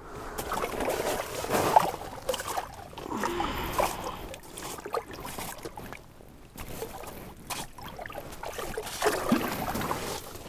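Water splashing and sloshing in an ice-fishing hole as a small lake trout is pulled out by hand. The splashing comes in uneven bursts, loudest in the first few seconds and again near the end.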